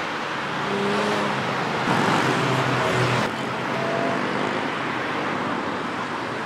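A car engine running nearby, louder from about two seconds in, then dropping away suddenly a little after three seconds, over a steady rush of outdoor background noise.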